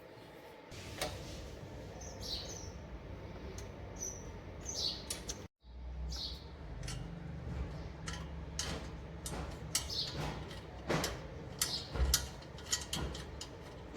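Small birds chirping over a steady low background rumble, with scattered sharp clicks and knocks.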